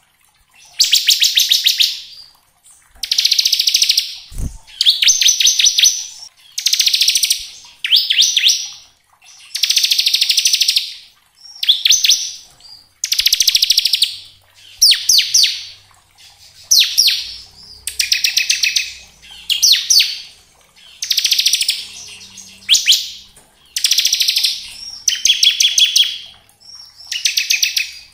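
Bar-winged prinia (ciblek) singing its 'ngebren' song: a string of rapid, rattling trills about a second long each, repeated every couple of seconds with short pauses between. A brief low thump sounds once, about four seconds in.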